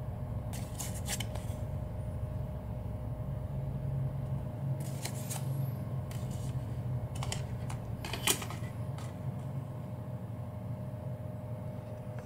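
Handling of a cassette tape's paper J-card and clear plastic case: a few scattered rustles and sharp plastic clicks, the sharpest about eight seconds in, over a steady low hum.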